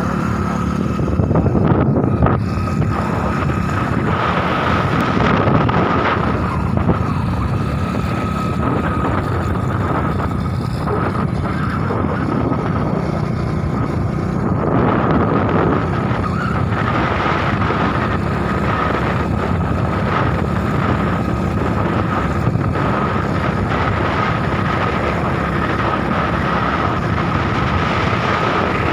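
Motorcycle running steadily at road speed, with wind rushing over the microphone and a thin steady whine.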